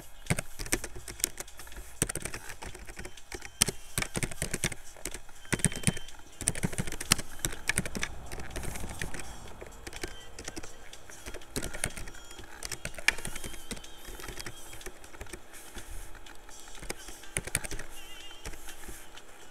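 Typing on a computer keyboard: irregular runs of quick keystroke clicks with short pauses between them.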